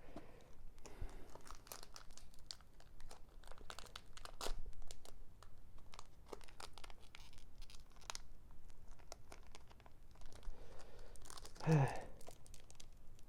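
Foil wrapper of a Pokémon card booster pack being torn open and crinkled, with many small crackles and rustles, and a brief low sound near the end.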